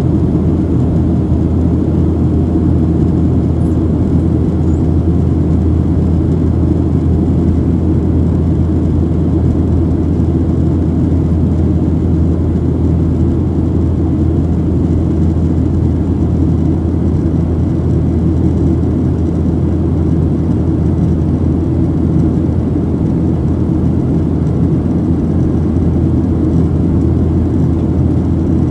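Steady low drone inside the cabin of a Boeing 737-700 in flight, from its CFM56-7B jet engines and the airflow over the fuselage, even throughout with no changes.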